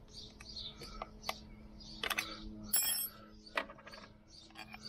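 Scattered metallic clicks and taps of an Allen key working an Allen bolt loose on a Lambretta scooter's front brake caliper, with a louder clatter just under three seconds in.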